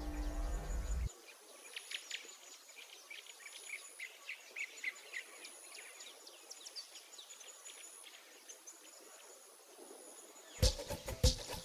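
Birds chirping, many short high chirps with a faint steady high trill behind them. A short music sting ends about a second in, and upbeat music with a strong percussive beat starts near the end.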